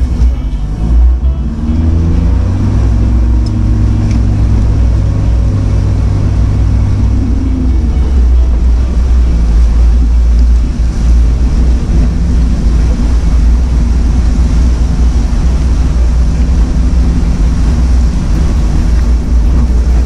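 Four-wheel drive's engine running under load as it wades through a river crossing: the engine note climbs over the first few seconds, then settles into a steady low drone.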